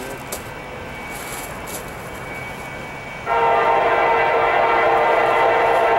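Diesel locomotive air horn, on the lead unit NS SD80MAC No. 7211, sounding a multi-note chord. It starts suddenly about three seconds in and is held steadily.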